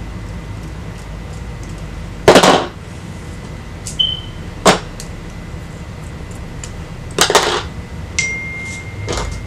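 Four short knocks and clatters as tools or objects are handled and set down, over a low steady hum; a faint steady high tone comes in near the end.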